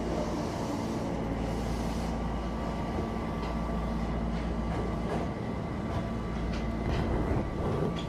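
Electric commuter train standing at an underground platform, its onboard equipment giving a steady low hum with a few held tones. Several faint clicks come in the second half.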